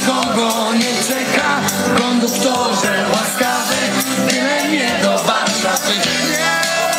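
Loud, upbeat party music played by a DJ over a sound system, with singing.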